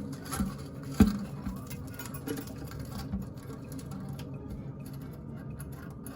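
Small clicks and taps from handling a toilet flapper chain and parts inside the tank: a sharp knock at the start and another about a second in, then light ticking over a faint low steady hum.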